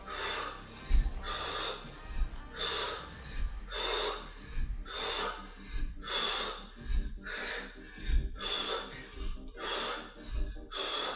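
A woman breathing hard with sharp, rhythmic exhales about every 0.7 s while doing jumping split lunges, with dull low thuds of her feet landing.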